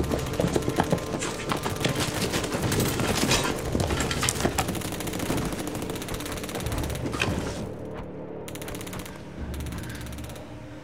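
Sustained machine-gun fire in rapid bursts, dense and loud, thinning out and dying away about eight seconds in.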